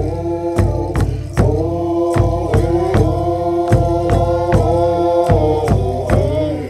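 Music: voices chanting long held notes over a steady drum beat of about two and a half strokes a second.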